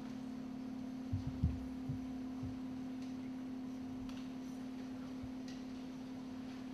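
A steady low hum, with a few soft low thumps between about one and two and a half seconds in.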